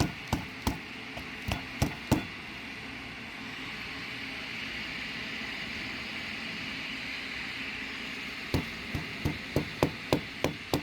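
Dust filters being knocked against a hard surface to shake out packed-in grinding dust: a handful of sharp knocks, a pause of several seconds, then quick knocking at about three a second near the end, over a steady hiss.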